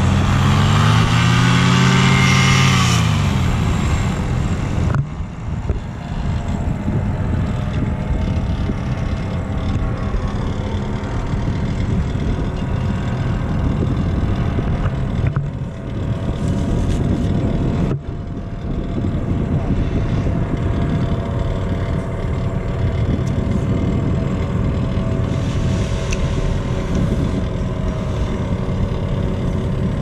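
Paramotor engines running. In the first few seconds one engine's pitch climbs and then falls away, then a steady engine rumble with a faint whine carries on.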